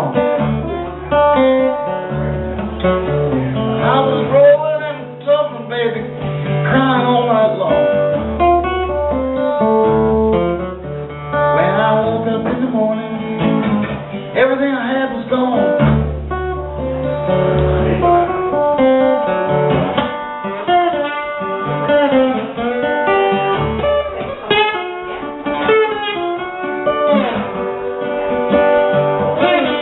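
Live solo acoustic guitar, picked and strummed, with a man singing into a microphone.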